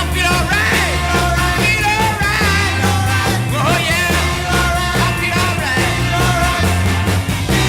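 A rock song with a sung lead vocal, wavering in pitch, over bass guitar and a steady drum beat.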